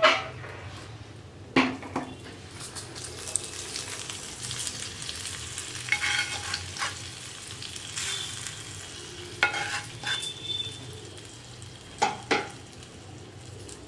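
Hot ghee tempering of dried red chillies, seasoning spices and curry leaves sizzling and crackling as it is poured from a small pan onto cool curd rice. A few sharp knocks, the loudest sounds, come near the start, about a second and a half in, about nine seconds in and near the end.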